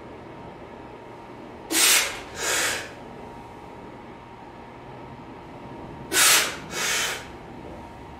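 A lifter breathing hard through the mouth while holding a kettlebell at the bottom of a goblet squat: two quick, forceful breaths close together, then another pair about four seconds later.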